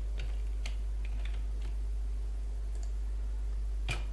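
Computer keyboard keystrokes: a few soft key clicks as characters are typed, then one sharper click near the end, over a steady low hum.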